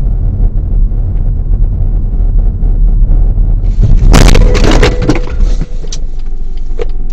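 Steady low road and engine rumble from a car recorded from inside, then about four seconds in a sharp crash of crunching metal and breaking plastic as the car rear-ends the SUV ahead, followed by a second or so of scattered rattling debris.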